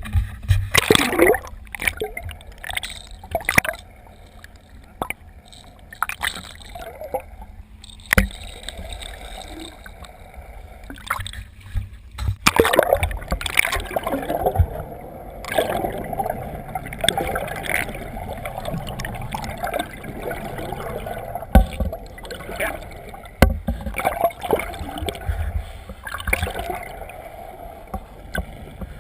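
Water sloshing and gurgling around a small boat under a steady low rumble, with scattered sharp knocks on the hull and deck, and indistinct voices now and then.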